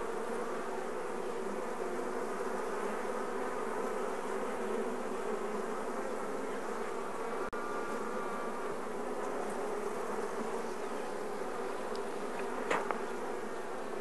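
A colony of honeybees humming steadily over the open frames of a hive. There is a brief click near the end.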